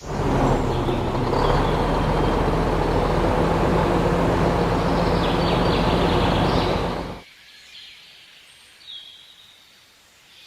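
A small vehicle engine or motor running steadily, which cuts off abruptly about seven seconds in. What follows is much quieter, with a few faint high chirps.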